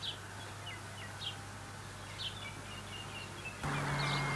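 Small birds chirping in short, scattered calls over a faint background hiss. About three and a half seconds in, the hiss suddenly steps up louder with a steady low hum.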